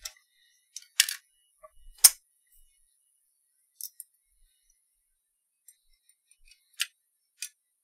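A handful of short, sharp clicks and taps from parts of an opened cassette deck being handled as it is put back together. The loudest comes about two seconds in.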